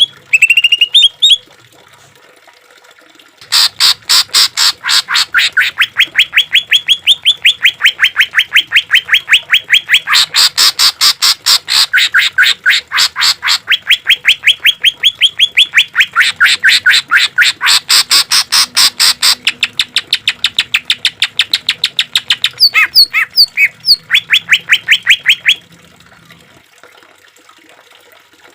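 Greater green leafbird (cucak ijo) song: after a short pause, a long, fast run of sharply repeated notes, several a second, the rapid-fire 'tembakan' phrase. It breaks off about three seconds before the end.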